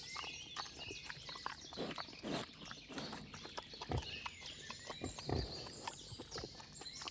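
Wild boar moving about in woodland: a scatter of snaps, rustles and hoof steps with a few low grunts.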